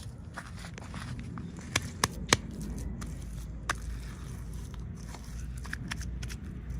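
Toy packaging being handled and opened: scattered crackles and sharp clicks, the loudest two a little after two seconds in, over a low steady hum.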